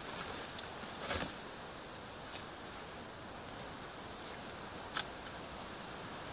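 Steady hiss with a few faint clicks: a short cluster about a second in and a sharper single click near the end.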